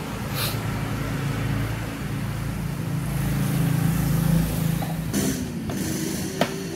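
A steady low machine hum grows louder and then cuts off about five seconds in. A few light metallic clicks follow, with one sharp click near the end.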